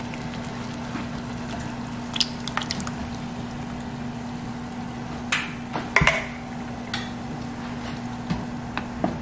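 Canned whole peeled tomatoes and their juice sliding out of the can into a saucepan of simmering red wine, with several wet plops and splashes. A wooden spoon stirs near the end, over a steady low hum.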